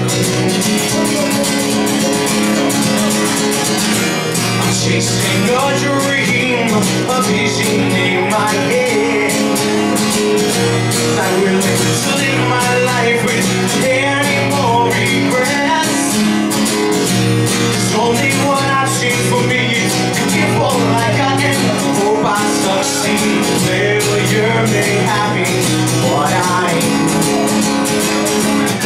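Acoustic guitar strummed steadily in chords, with a man singing a melody over it from a few seconds in.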